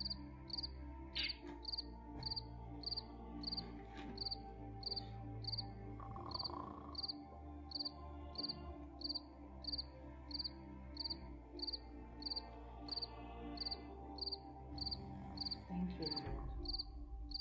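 A cricket chirping steadily at night, short high chirps evenly repeated about twice a second, over a faint low hum.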